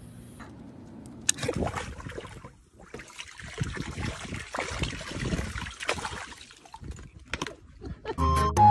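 Water from a running garden hose spraying and splashing in a paddling pool, with a dog in the pool holding the hose in its mouth and stirring the water, many short splashes. Music starts near the end.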